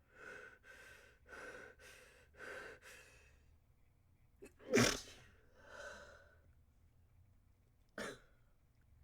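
A person's stifled sneeze: four quick, breathy in-breaths build up, then one sharp, held-back sneeze comes about five seconds in, followed by a breath out. A second short, sharp burst comes near the end.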